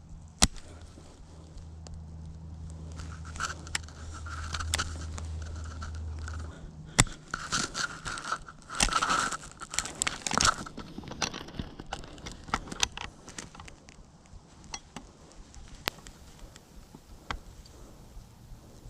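Rustling and crinkling handling noise with many sharp clicks, the loudest near the start and about seven seconds in, over a low steady hum that stops about six and a half seconds in.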